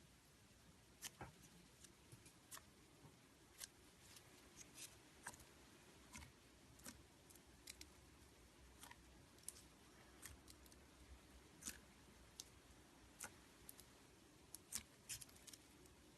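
Slime being handled, giving quiet, scattered little clicks and pops at an irregular pace of about one or two a second.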